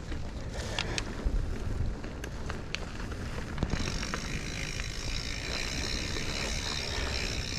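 Mountain bike rolling along a dirt trail: tyre rumble and wind on the microphone, with a few sharp clicks and rattles from the bike in the first few seconds. From about four seconds in, a steady high-pitched buzz sits over it.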